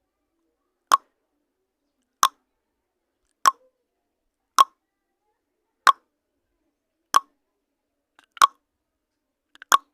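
Countdown timer sound effect: eight short, identical ticks, about one every 1.25 seconds, with silence in between.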